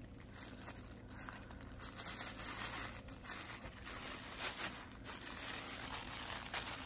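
Product packaging crinkling and rustling in the hands, with scattered small crackles and rips as it is pulled at.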